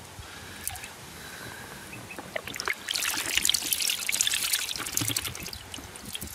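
Water and oranda goldfish being poured from a bucket into a pond: splashing and trickling that starts about halfway through.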